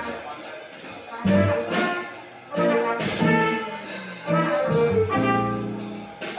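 Live jazz quartet playing: a trumpet carries the melody in phrases over an electric stage keyboard, upright double bass and drum kit.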